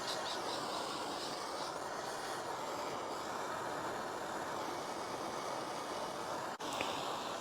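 Gas torch flame burning with a steady roar while heating solder on a heater core's tank. A single sharp click comes near the end.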